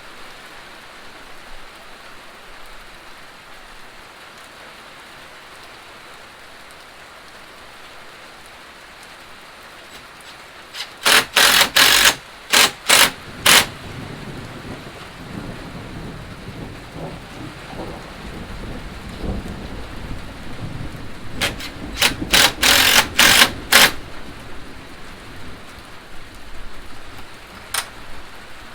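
Steady rain drumming on a tin roof. About ten seconds in, and again about ten seconds later, come clusters of loud sharp cracks over a low rumble, with one more crack near the end.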